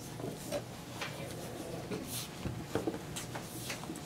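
Dry-erase marker writing on a whiteboard: a run of short, irregular strokes as words are written out.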